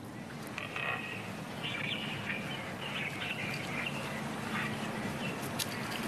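Seabirds at a European shag nesting colony calling in short, repeated bursts, with a few sharp clicks near the end over a steady low hum.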